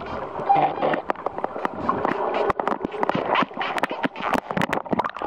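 Underwater sound: a dense scatter of sharp clicks and pops over a murky rushing background, thickest in the second half.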